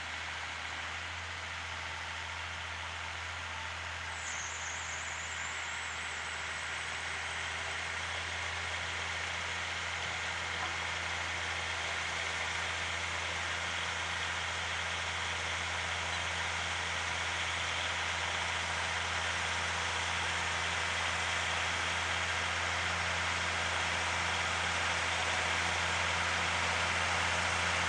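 Fendt 712 tractor's diesel engine running steadily while pulling a rotary power harrow and seed drill across the field, growing slowly louder as it approaches.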